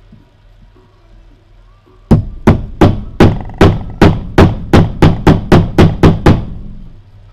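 About fourteen sharp hammer blows driving an oil seal into a Ural motorcycle gearbox housing, each with a short metallic ring, coming a little faster toward the end.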